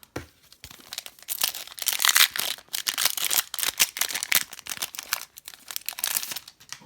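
Crinkling and tearing of a hockey trading-card pack wrapper as it is ripped open and its cards pulled out: a dense, irregular crackle lasting about six seconds.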